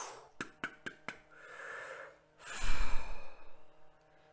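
A person breathing deeply and audibly close to the microphone, taking slow, deep meditation breaths. Three breaths, the loudest a long sigh-like breath about two and a half seconds in, with a few small clicks early on.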